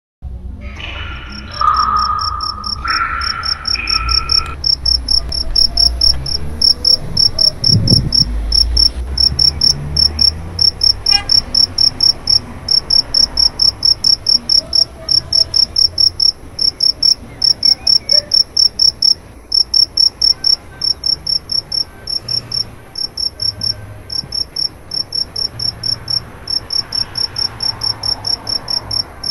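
A cricket chirping steadily: fast, evenly repeated high-pitched chirps with short breaks. A few brief stepped lower tones sound in the first few seconds.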